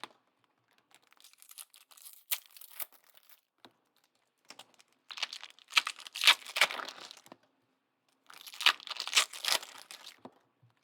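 Trading-card pack wrappers being torn open and crinkled by hand, in three separate bouts of tearing and crackling with short pauses between them.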